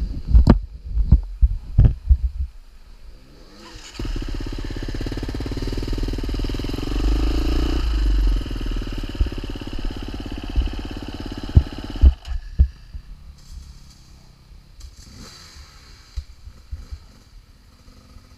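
Off-road motorcycle engine running. It comes in abruptly about four seconds in, holds steady with a slight rise midway, and cuts off sharply about twelve seconds in, with scattered knocks and bumps before and after.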